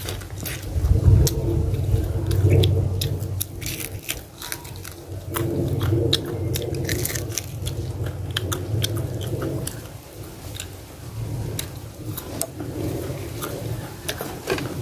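Close-up chewing and biting of fried fish, with many small crunchy clicks as it is eaten.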